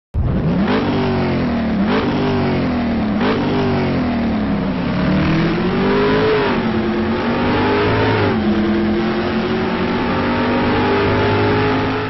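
Car engine accelerating hard through the gears. The pitch climbs and drops sharply at three quick upshifts in the first three seconds or so, then rises and falls more slowly before holding steady over the last few seconds.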